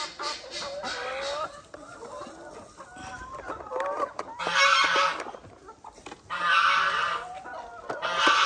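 Chickens clucking, many short calls overlapping, then three loud harsh squawks about a second long each in the second half.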